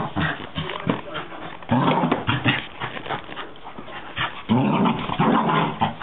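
A small dog growling and snarling as it attacks a slipper in play, in three rough bouts about two seconds apart.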